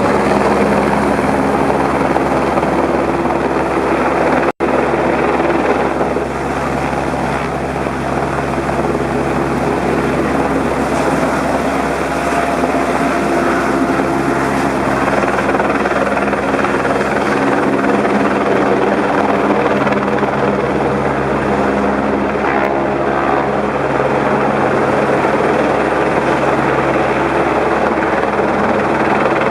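Helicopter in flight: steady, loud engine and rotor noise with a constant low drone. The sound drops out for an instant about four and a half seconds in.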